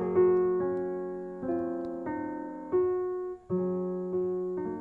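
Piano-like keyboard tones in just intonation playing a short run of struck notes and two-note chords that demonstrate the 21:16 interval, the 21st harmonic against the 16th: a severely flat fourth about 30 cents narrower than a pure fourth, a wolf interval. A new note enters roughly every half second to second, each one fading as it rings.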